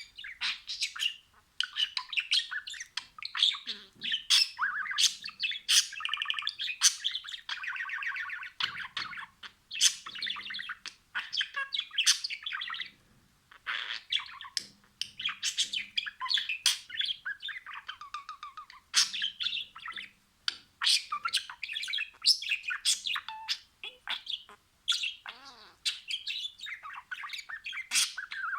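Budgerigars singing: a fast, continuous warble of chirps, clicks and chattering calls, pausing only for a moment now and then.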